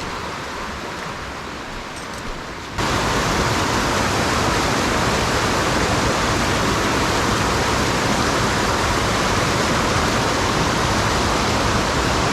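Swollen mountain creek in high flow after a storm, a steady rush of fast water. About three seconds in it jumps abruptly louder and fuller and holds there.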